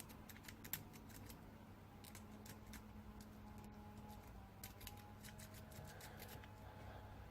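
Snake rake being worked in the keyway of a Romak alarm padlock: faint, irregular metallic clicks and scrapes as the rake bounces the pin tumblers. This is the first stage of the pick, raking to get a false set.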